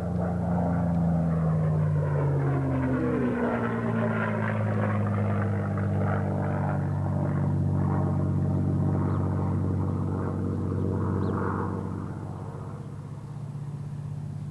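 Piston engine of a WWII warbird making a low, fast pass, its drone sliding down in pitch as the plane goes by, then easing off a little near the end.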